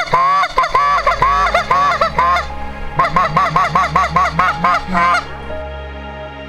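Rapid series of Canada goose honks, about four to five a second, in two runs with a short break between them. Soft background music takes over about five seconds in.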